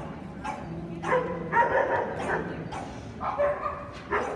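A dog barking and yipping repeatedly, in several short runs of high barks.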